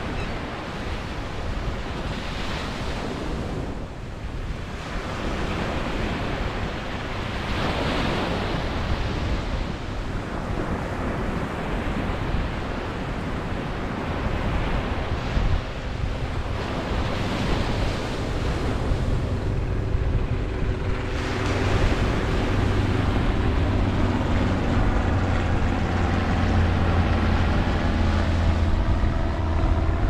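Ocean surf breaking and washing up onto a sandy beach, swelling and fading with each wave. About two-thirds of the way in, a low steady drone comes in underneath the surf.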